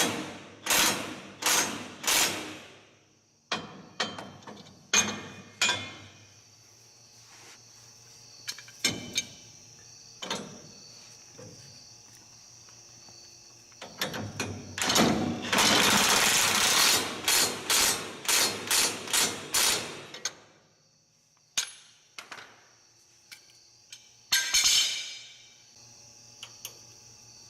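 A crescent wrench clanking and scraping on the steel bolts of a truck steering brace as they are snugged up. It makes a quick run of sharp metallic strikes at the start, scattered clicks, and a longer stretch of rapid clatter about halfway through, with a shorter burst near the end.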